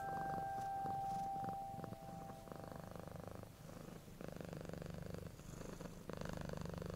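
Cat purring, a fine rapid rattle in stretches of about a second or more with short breaks between breaths. The last note of a mallet-percussion tune dies away in the first two seconds.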